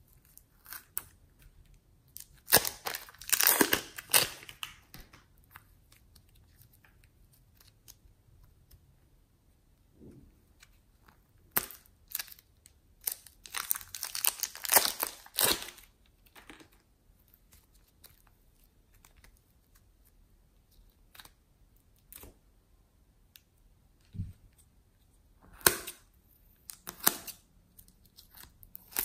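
Scissors snipping the tips off plastic piping bags and the crinkling bags squeezed empty of slime, heard as three bursts of sharp crackling and clicking with quiet pauses between.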